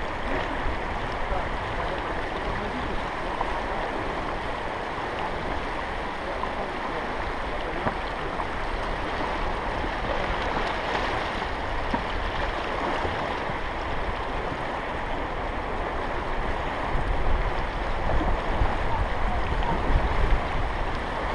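Steady rush of river water flowing around a boat on a fast stretch of river, with low rumbling bumps on the microphone in the last few seconds.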